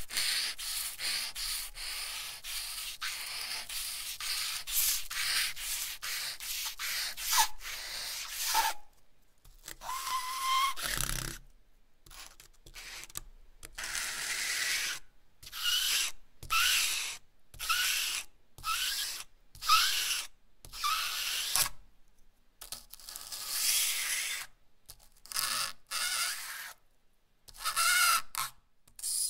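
A lump of potato charcoal scratching across smooth heavy drawing paper. It starts as a dense run of quick strokes for the first eight seconds or so. After a short pause come separate back-and-forth strokes about once a second, many with a short rising squeak.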